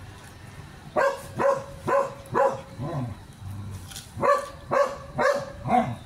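A dog barking: five sharp barks in quick succession, the last one weaker, a short pause, then four more.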